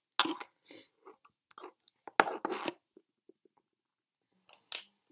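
Lipsticks and lip pencils being handled and rummaged through: a series of sharp clicks and rustles, loudest near the start and about two seconds in, then a pause and one more click near the end.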